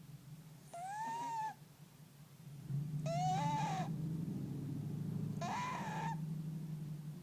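Overweight cat snoring in its sleep: a nasal squeak that rises and falls in pitch on each breath, three times about two seconds apart, over a low rumble that swells in the middle.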